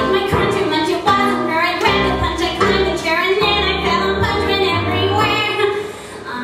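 A woman singing a contemporary musical-theatre song, accompanied on a keyboard piano.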